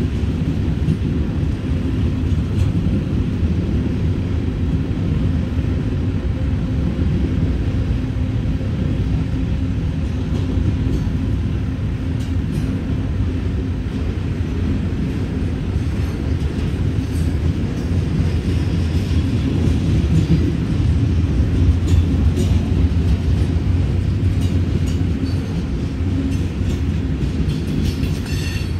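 BNSF freight train's cars rolling past: a steady low rumble of wheels on rail, with faint clicks from the wheels and a slight swell in loudness about two thirds of the way through.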